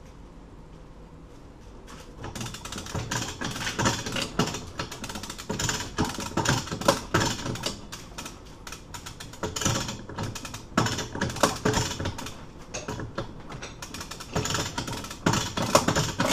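Hand-cranked winch ratchet clicking in rapid runs, several bouts with short pauses between cranks, as it draws the bolt cutter's handles closed under heavy load on a hardened padlock shackle.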